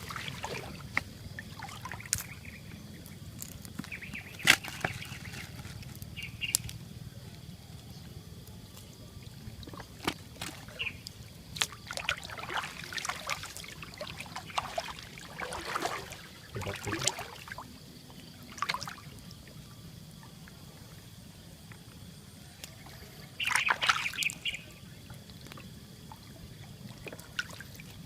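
Water splashing and sloshing in short, irregular bursts, with a run of splashes around the middle and a louder one about two thirds of the way through.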